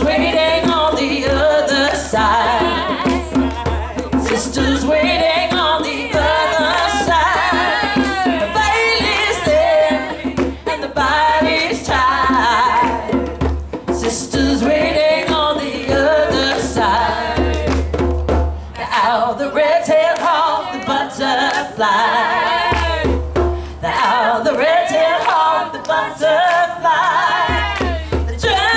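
Several women singing together in a folk song, with hands beating djembe drums under the voices.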